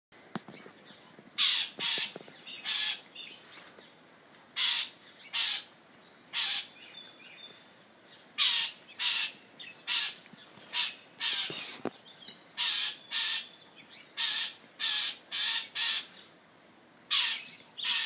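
Northern mockingbird giving about twenty short, harsh, barking calls, loosely grouped in twos, threes and fours, every second or two.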